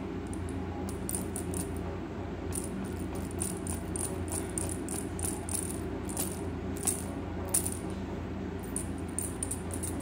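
Toy fish being shaken and rattling in quick runs of light, high clicks, with two sharper clicks about seven seconds in.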